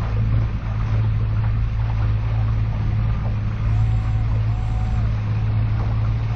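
Boat's outboard motor running at slow trolling speed, a steady low drone, with wind and water noise over it.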